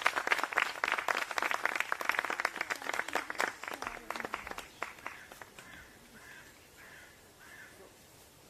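Audience applauding, dense clapping that thins out and dies away about four to five seconds in.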